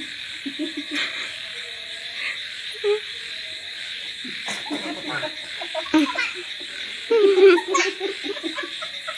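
People laughing, a child among them, in short bursts, with a run of quick laughs about seven seconds in as the loudest part. Under it runs a steady high chorus of night frogs and insects.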